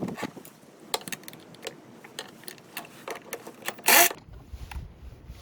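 Small metallic clicks and clinks of a wrench and socket being worked on the snow blower's 10mm blade bolts and nuts, with one louder clatter about four seconds in.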